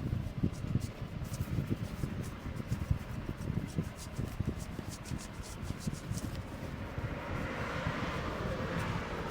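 Hands working over a head in a barber's head massage: quick, irregular thumps and rubbing close to the microphone. A steady hiss builds in the last couple of seconds.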